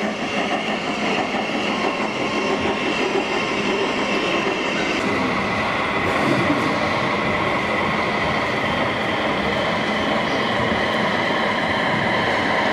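Model train running on its track: a steady rolling rumble with a faint motor whine, its character changing about five seconds in.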